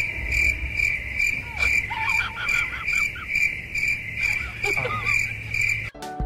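Cricket chirping: a steady, even run of high chirps about two and a half times a second, which cuts off abruptly near the end.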